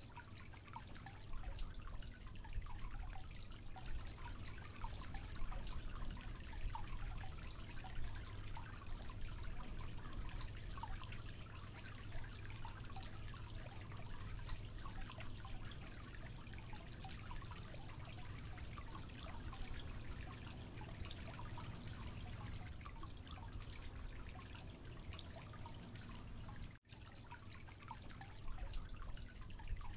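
Electric hand mixer running, its wire beaters whisking raw egg and sugar into a liquid batter: a steady low motor hum under the wet, crackly swish of the beaters in the liquid. The sound drops out for an instant near the end.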